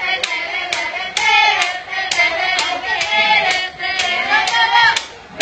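Young voices singing along while hands clap a steady beat, about two claps a second.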